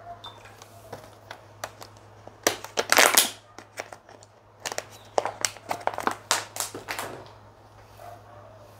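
Close-miked mukbang eating sounds: crunching and wet crackling clicks in quick clusters, loudest about three seconds in, then a run of separate crunches that dies away about seven seconds in.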